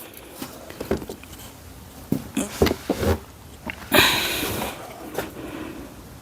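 Hand work on plastic door wiring-harness connectors: scattered light plastic clicks and taps, with a louder scraping rustle about four seconds in.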